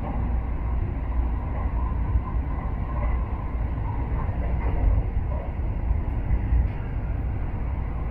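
Shinkansen bullet train running: a steady low rumble with even noise above it and no change in level.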